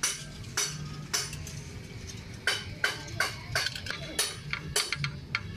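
Irregular metallic clinks and taps, about a dozen sharp strikes, from steel brake parts being handled: the brake shoes and return springs on a truck's front-wheel drum-brake backing plate.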